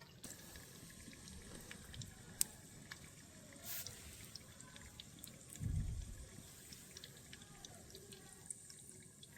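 Faint water trickling and dripping, with scattered small clicks and a low thump a little past halfway.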